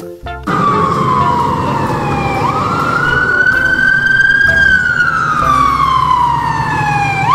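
Fire engine siren wailing: a pitch that slowly falls, sweeps quickly back up and falls again, over a steady low rumble from the ladder truck. It starts about half a second in and cuts off suddenly at the end.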